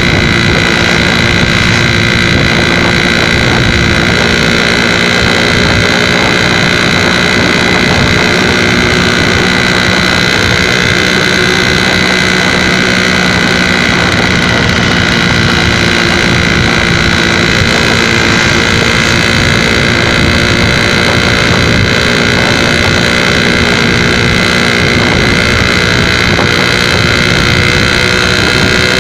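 Suzuki RC80 motorcycle's two-stroke engine running at a steady pitch while ridden at an even speed, with wind noise on the microphone.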